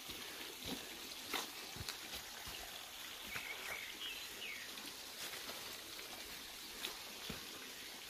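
Faint forest ambience: a steady hiss with a few short bird chirps around the middle and a handful of light clicks.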